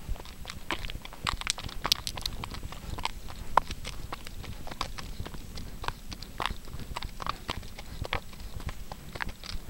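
A horse walking on a gravel road: its hooves clop and crunch on the loose stones in an uneven run of sharp steps.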